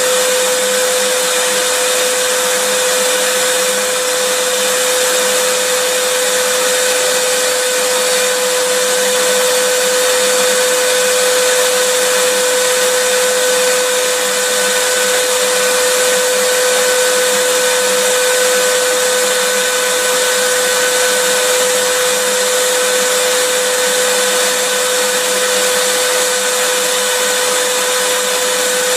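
Vacuum cleaner running continuously: a steady rushing hiss with a constant whine that never changes in pitch or level.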